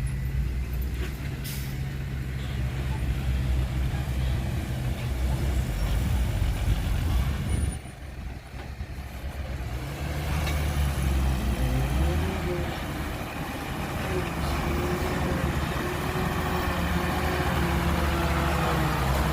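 Heavy diesel engine of a dump truck or bulldozer running steadily. It drops away for about two seconds near the middle, then rises in pitch and runs on at higher revs.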